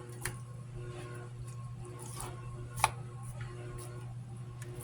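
A few soft clicks and rustles of hands handling raw pork steaks and seasoning in a kitchen, the sharpest click about three seconds in, over a steady low hum.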